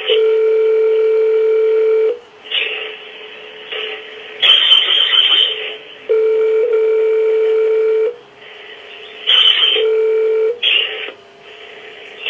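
US telephone ringback tone heard down a phone line: a steady low buzzing ring for about two seconds, four seconds' pause, a second two-second ring, and a shorter third ring about ten seconds in, with noisy line crackle between the rings. The call to the landlord's office is ringing unanswered.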